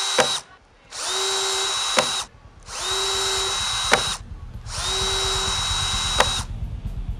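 Power drill boring holes in a thin plastic sheet, run in four short bursts. Each burst is a steady whine that ends in a quick falling whine and a click as the drill stops.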